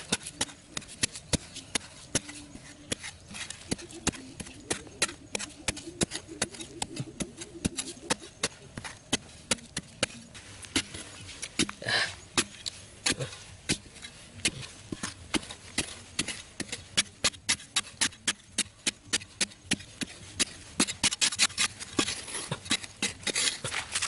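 A hand digging tool chopping into hard, dry soil at the bottom of a hole, sharp strikes about twice a second, breaking up clods, with one heavier strike about halfway.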